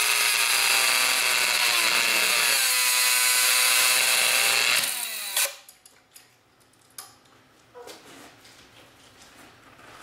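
Small brushed DC motor from a cordless drill, overdriven on pulsed DC, running with a loud high whine whose pitch drifts slowly downward. The whine cuts off abruptly about five seconds in with a sharp click, and a few faint clicks follow.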